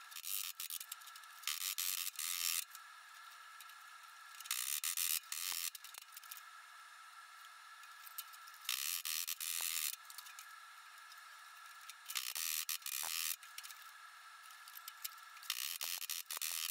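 Hammer tapping on a thin galvanized steel strip clamped in a sheet-metal bending brake, in about six short runs of rapid metallic taps a few seconds apart.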